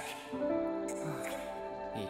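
Instrumental background music from the anime episode's soundtrack: held, sustained notes, with new notes entering about a third of a second in.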